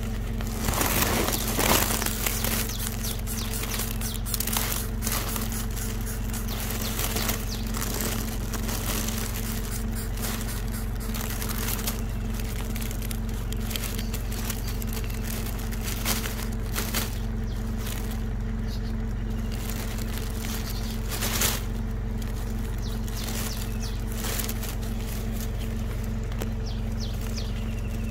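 Dry grass leaves crackling and rustling in irregular bursts as they are pushed aside, loudest about a second or two in, over a steady low hum.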